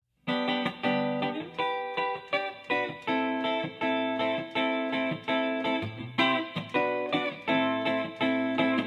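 Song intro: a guitar plucking a repeating pattern of notes, each ringing and fading, starting about a quarter second in.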